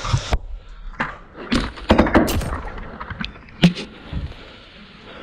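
A run of irregular sharp knocks, clicks and rattles, densest in the middle, with a single sharp knock near the end.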